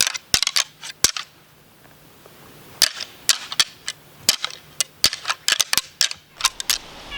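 Rattling antlers clashed and ground together in three bursts of sharp clacks and ticks with short pauses between them. This imitates two bucks fighting, a rut call meant to bring bucks in.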